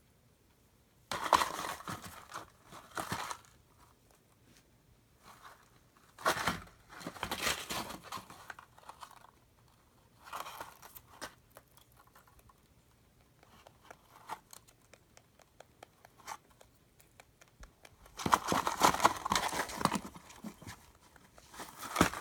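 A domestic rabbit rummaging in a cardboard box stuffed with hay, rustling the hay and crinkling and tearing at the cardboard. The noise comes in several bursts of a few seconds each, with quiet pauses between.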